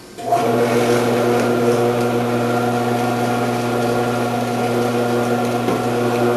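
Electric motor of an Omcan HLC 300 commercial vegetable cutter switching on about a third of a second in and then running at a steady pitch with a loud hum, its shredding disc spinning.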